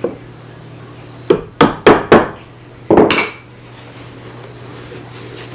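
Ebony plugs being tapped into screw holes in a cherry box: four sharp strikes in quick succession, then a double strike about a second later.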